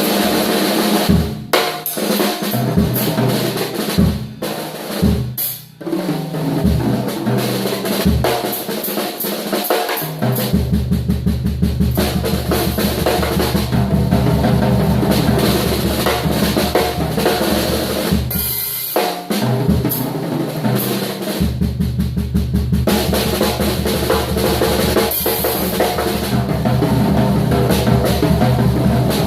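Drum kit played solo: separate, spaced bass drum and snare hits for the first ten seconds or so, then fast, dense runs of strokes with heavy bass drum that keep going, broken by a couple of short pauses.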